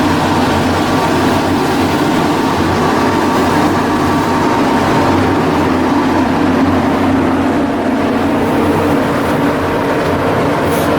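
Heavy machinery running steadily: a continuous, even drone with several steady hum tones.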